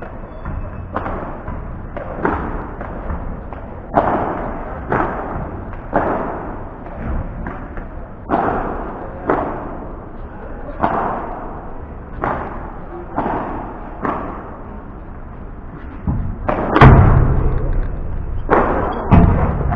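Padel rally: sharp knocks of rackets striking the ball and the ball bouncing, about one a second, each with a short ringing tail. Near the end comes a louder, deeper thud.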